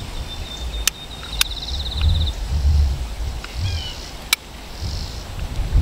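Wind gusting against a windscreened microphone, with a high thin trill for the first two seconds and a few chirps in the middle. Three sharp clicks are heard, two near the start and one past the middle.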